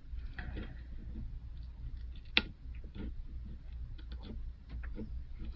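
Scattered faint clicks and ticks of a spudger prying at the iPhone 7's glued screen connector, with one sharper click about two and a half seconds in, over a low steady hum.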